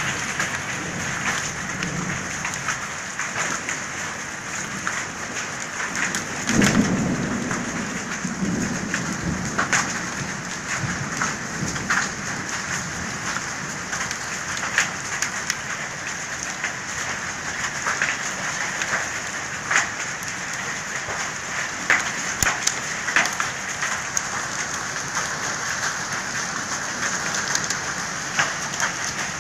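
Heavy rain falling steadily, with many sharp drop ticks on nearby surfaces. A roll of thunder rumbles about seven seconds in.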